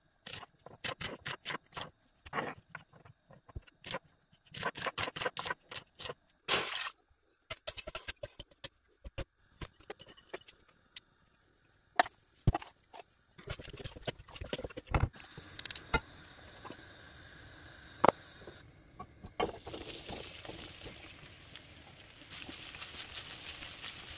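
Knife chopping okra on a plastic cutting board: runs of sharp taps through the first half. After that comes a steady hiss with a few knocks of cookware, and from about two-thirds in, chopped okra sizzling as it fries in a pan.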